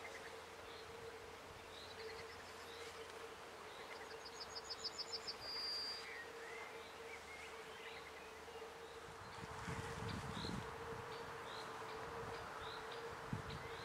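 Evening meadow ambience: a steady, high insect hum, with scattered short bird chirps and a quick bird trill ending in a held whistle about five seconds in. A brief low rumble comes about ten seconds in.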